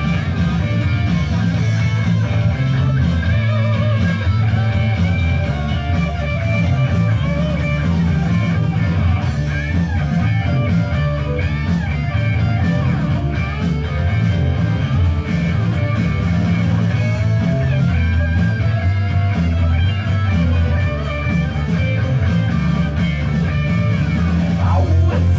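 Rock music with electric guitar and bass guitar playing.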